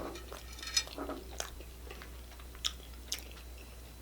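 Chewing crunchy hard-shell tacos: a few sharp, separate crunches with quiet between them.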